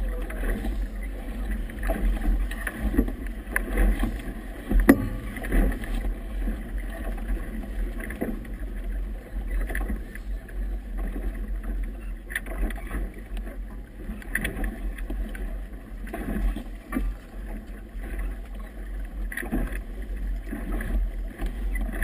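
Wind buffeting a GoPro camera's microphone on a boat in a 17–20 knot breeze, giving a steady low rumble, with choppy water splashing and slapping against the hull in irregular knocks.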